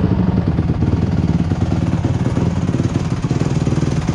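Dirt bike engine idling steadily with a fast, even firing pulse, settled after being revved down.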